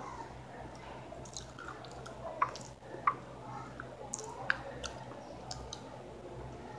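A plastic water bottle being handled, with a few short sharp clicks and small crinkles, the loudest about two and a half, three and four and a half seconds in, over a low steady hum.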